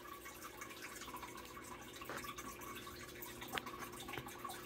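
Faint water dripping and trickling in a home aquarium over a low steady hum, with one sharper tick about three and a half seconds in.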